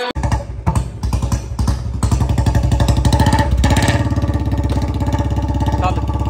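Royal Enfield Bullet motorcycle's single-cylinder engine running while the bike stands still, its exhaust beating in rapid pulses. The beat is uneven for the first couple of seconds, then settles into a steady, louder run.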